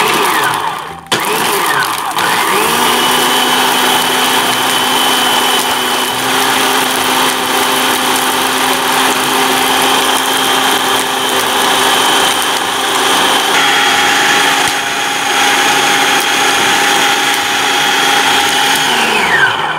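Kenwood food processor motor whipping instant coffee, sugar and hot water into foam. It starts, cuts out briefly about a second in, spins back up to a steady whine and runs evenly, then winds down near the end.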